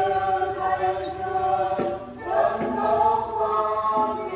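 A choir singing a slow hymn in long held notes.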